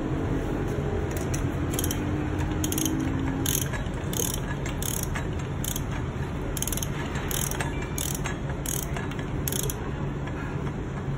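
Socket ratchet clicking as it is swung back and forth on a bolt of a motorcycle engine, a click about every half second, starting about a second in and stopping shortly before the end, over a steady low hum.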